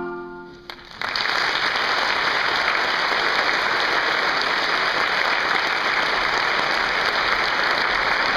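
The last marimba chord of a mallet-percussion ensemble dies away, and about a second in an audience breaks into steady applause.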